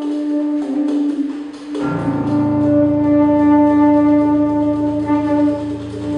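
Tenor saxophone holding one long, steady note in contemporary aleatoric chamber music. About two seconds in, a low, pulsing drone from the grand piano joins beneath it and carries on.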